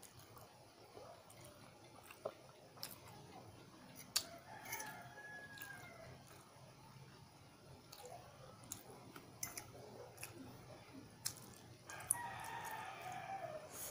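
A rooster crowing twice in the background, a shorter crow about four and a half seconds in and a longer, louder one near the end. Scattered light clicks of a metal fork against a plastic bowl come between the crows.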